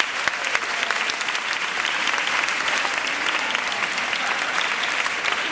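Audience applauding, a dense steady patter of many hands clapping, with one pair of hands close by.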